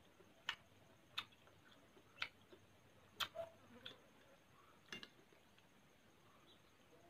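Metal spoon clicking against a glass bowl while eating: about six sharp, irregular clicks roughly a second apart over near silence.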